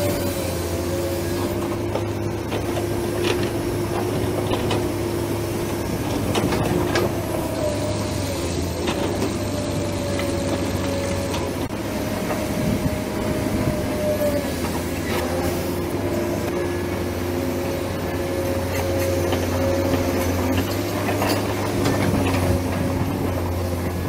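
Radio-controlled hydraulic excavator working: a steady motor-and-pump whine over a low hum, its pitch wavering slightly as the arm and bucket move. Scattered short clicks from the machine and the earth it handles.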